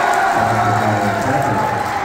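Basketball crowd in a school gym, cheering and yelling, with several long held notes.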